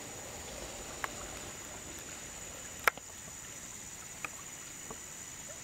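Shallow river water running steadily, with a constant high-pitched whine and a few sharp clicks, the loudest about three seconds in.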